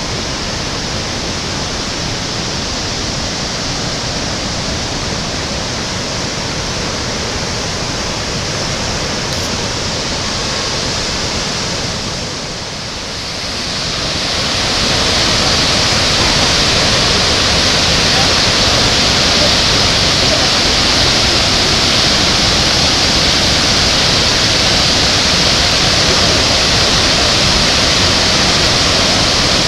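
Victoria Falls' falling water, a loud steady rushing noise. It dips briefly about halfway through, then comes back louder and brighter.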